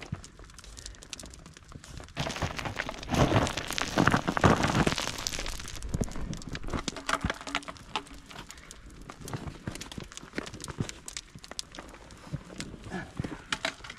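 Boots scuffing and crunching on loose stones and gravel while scrambling down a steep slope, with many small clicks and knocks. A louder stretch of scraping comes about two to six seconds in.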